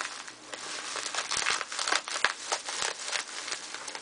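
Plastic bubble wrap being handled and pulled open, crinkling in irregular crackles that grow busier partway through.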